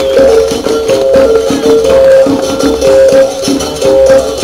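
Capoeira music on a berimbau, atabaque drum and rattling percussion: a twanging two-note figure steps back and forth every fraction of a second over steady drumming and shaker rattle.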